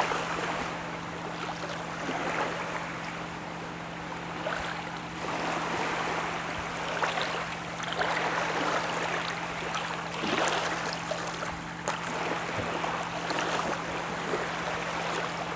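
Steady rushing outdoor background noise that swells and fades every few seconds, with a faint low steady hum underneath.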